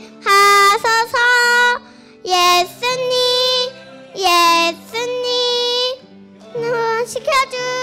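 A young girl singing a worship song into a microphone in sung phrases of one to two seconds, with short breaks between them, over a quieter steady instrumental backing.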